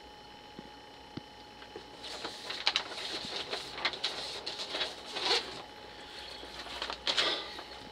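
Soft, irregular rustling and shuffling handling noises from someone moving about, over a faint steady electrical hum, starting about two seconds in.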